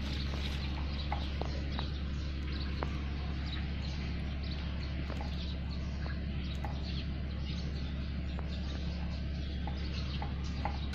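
Dry banana leaves crackling and rustling as two puppies wrestle in them, with scattered faint chirps and a steady low hum underneath.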